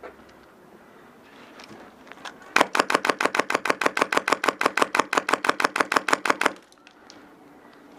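Airsoft electric gun (AEG) firing one long full-auto burst, an even string of sharp shots at roughly eight a second, starting about two and a half seconds in and stopping abruptly about four seconds later.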